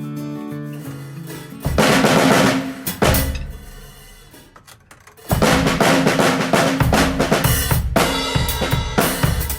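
Drum kit played to test a Peace snare drum: after a held musical note, a loud burst of snare and bass drum hits comes about two seconds in and rings away. A steady beat starts again a little past the middle.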